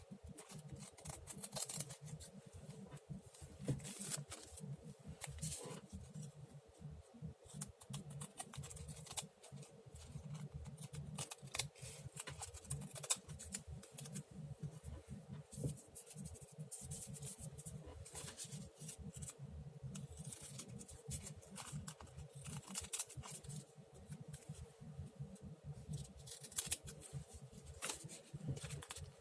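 Scissors cutting paper in many short, irregular snips, trimming around an edge.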